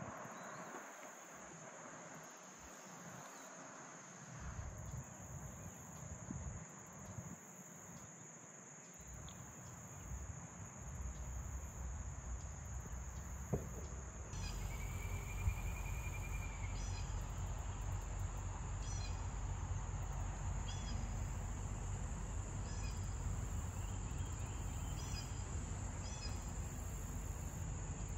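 Steady high-pitched drone of insects. About halfway through, a bird joins with short calls every couple of seconds, including one brief trill, over a low rumble.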